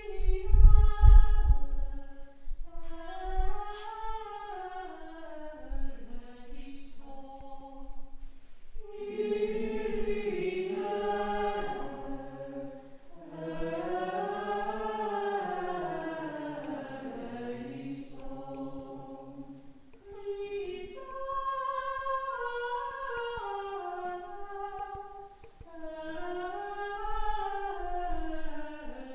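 Schola choir singing unaccompanied liturgical chant: one flowing melody line, doubled an octave lower in places. A few low thumps sound in the first two seconds.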